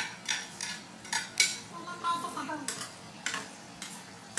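Metal turner and ladle scraping and clinking against a wok while stirring julienned vegetables in sauce: irregular clacks, the sharpest about one and a half seconds in.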